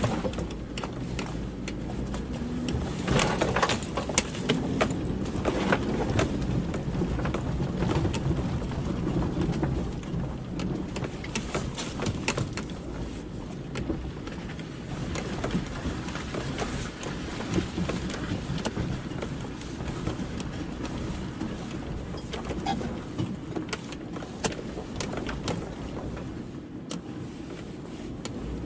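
A car driving over rough, uneven ground: a steady low rumble of engine and tyres, with many knocks and rattles as it bumps along.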